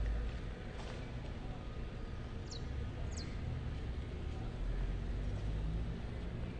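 Low, uneven outdoor rumble, with a faint knock about a second in and two short, high, falling chirps around two and a half and three seconds in.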